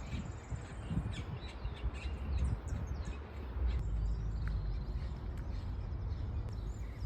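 Several small birds chirping and calling in short high notes, with a quick trill near the start, over a steady low rumble.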